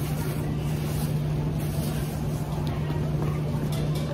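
Steady low hum of a supermarket's background machinery under a general noise wash, with a clear plastic produce bag crinkling briefly in the hands a couple of times.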